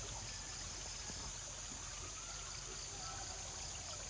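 Faint water trickling over a steady high-pitched buzz of insects.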